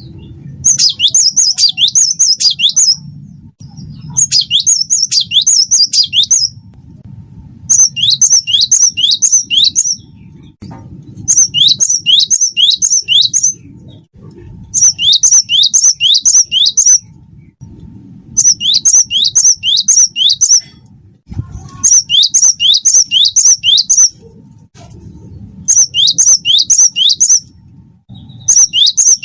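Gelatik batu (cinereous tit) singing a repeated song: phrases of about two seconds, each a quick run of five or six high notes sliding downward, with short pauses between phrases, about nine times over. A faint low hum runs underneath.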